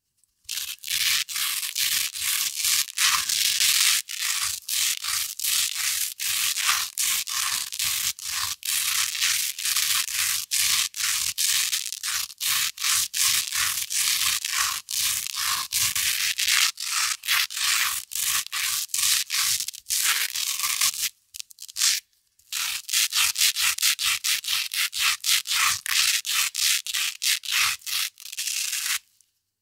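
Hook-and-loop (Velcro) tape scratched quickly back and forth, a hook roll rubbed against loop material, in rapid scratchy strokes about three or four a second. There is a brief break a little over two-thirds of the way through, and the strokes stop just before the end.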